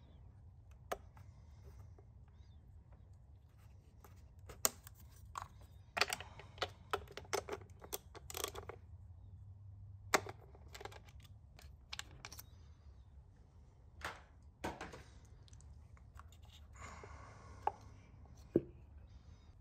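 Irregular light clicks and rattles of hands working on the ignition: plastic coil-pack connectors being unclipped and a socket extension being fitted onto a spark plug, with a tight cluster of clicks around the middle.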